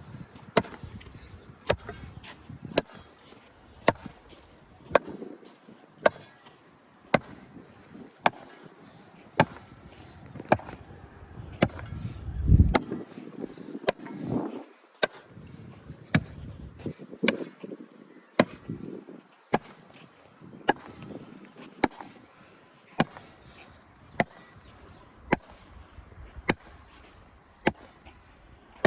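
Sharp knocks repeating evenly about once a second, with low rumbling between them that swells about halfway through.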